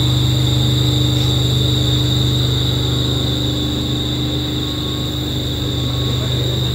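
Electric-motor-driven HSCF pump running steadily at commissioning: a loud constant low hum with a steady high-pitched whine over it.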